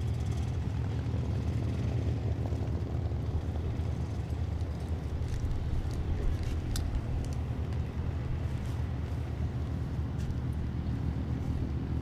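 P-51 Mustangs' Packard Merlin V-12 engines running at low taxi power, a steady low drone.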